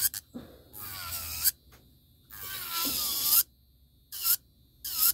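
Electric nail file with a sanding bit grinding down an acrylic nail coated in glitter, in about five on-and-off bursts of rasping whine with a wavering pitch. Between the bursts it is nearly silent.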